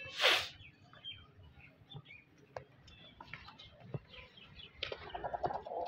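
Chickens, a rooster and a hen, as he chases and mounts her. A short, loud, harsh burst comes about a third of a second in. Faint chirps and scattered small ticks follow, then a fast pulsing sound near the end.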